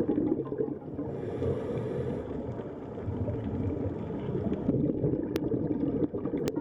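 Ocean water noise: a low, steady rumbling wash with no clear tune.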